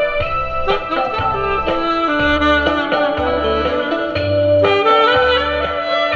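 Saxophone duet playing a melody in held, stepping notes over a recorded backing track, which carries a steady low bass line through the PA speaker.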